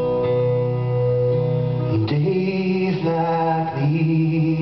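Acoustic guitar playing held chords, changing chord about two seconds in, with a man singing over it in the second half.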